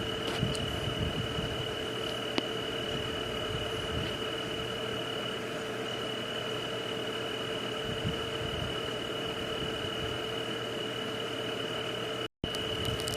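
Night-time nature ambience: a steady even hiss with an unbroken high trill and a lower steady tone, with a few faint clicks. The sound cuts out completely for a split second about twelve seconds in.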